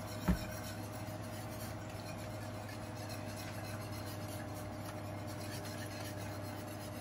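A utensil stirring pasta in a skillet of gravy, with soft scraping against the pan, over a steady background hum. One light knock comes just after the start.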